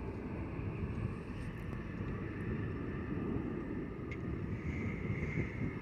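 Steady low rumble of jet airliner engines.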